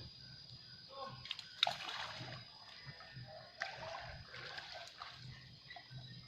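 Water splashing, with two sharper splashes about one and a half and three and a half seconds in.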